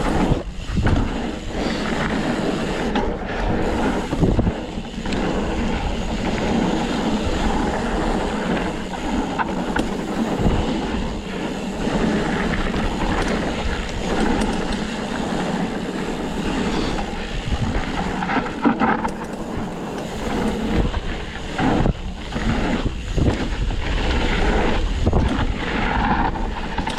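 Canfield Nimble 9 hardtail mountain bike ridden over a trail: its big tyres rolling over dirt and rocks, with knocks and rattles over the bumps and wind on the microphone.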